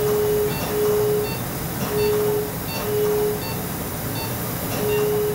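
Surgical CO2 laser firing at an eardrum, its emission tone sounding as five half-second mid-pitched beeps, about one a second with a longer pause before the last, over a steady hiss.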